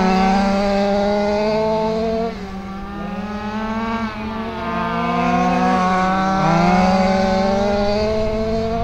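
Several quarter-scale RC sprint cars racing around an oval. Their engines overlap, with the pitch rising and falling again and again as the cars speed up and slow for the turns.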